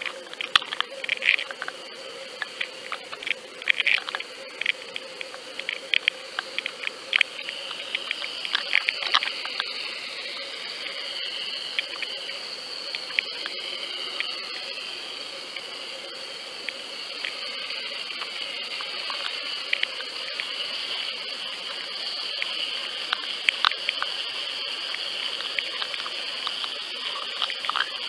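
Underwater sound picked up by a camera being towed and lowered through a lake: a steady water rush with a constant high whine, and scattered sharp clicks and ticks, thickest in the first few seconds and again near the end.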